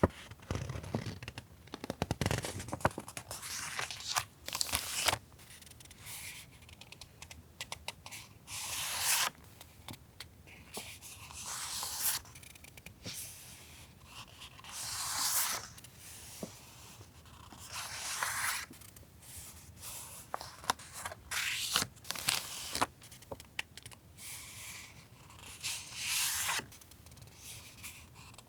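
Paper and packaging being handled: irregular short rustles and swishes, one every second or two, with a few light clicks and taps in between.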